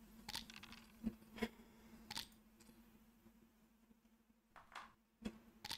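Near silence: a faint steady room hum with a few soft, irregular clicks.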